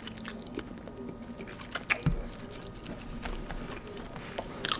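A person chewing a mouthful of salmon and rice, with many small wet mouth clicks and a few louder clicks about two seconds in.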